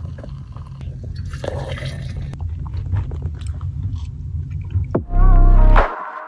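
Small clinks and scrapes of spoons in plastic yogurt pots over a low steady hum. About five seconds in, loud bass-heavy music starts abruptly.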